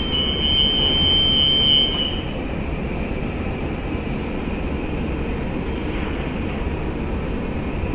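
Steady low rumble and hiss of a large container ship's bridge. For about the first two seconds a high, steady electronic beep sounds: the engine order telegraph's alarm as slow astern is rung down to the engine room.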